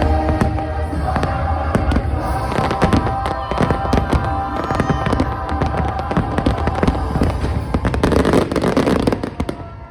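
A rapid, dense run of firework bursts and crackles over show music holding long chords, thickest in the last couple of seconds before the sound drops away near the end.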